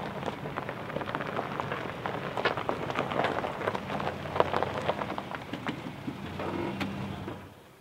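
Toyota Tacoma pickup rolling slowly over a dirt and gravel track: tyres crunching and crackling over stones, over a low, steady engine hum. The sound dies away near the end.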